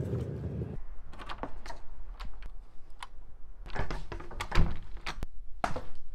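A door's knob and deadbolt clicking and rattling as the door is unlocked and opened. Scattered small knocks and handling clicks follow, with one louder thump about four and a half seconds in.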